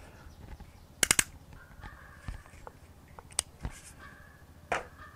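Sharp plastic clicks from a Bosch JS470EB jigsaw's orbital-action selector and blower switch being worked by hand. A quick run of three or four clicks comes about a second in, followed by a few single clicks.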